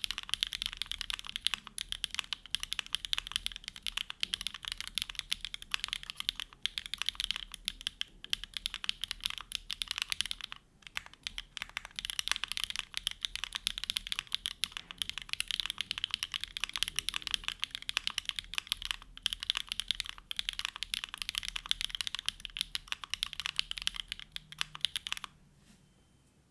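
Fast, continuous typing on a Neo65 mechanical keyboard with hand-lubed HMX Hyacinth V2U linear switches, a carbon fibre plate with plate and case foam, and GMK Botanical keycaps. There are two brief pauses, and the typing stops shortly before the end.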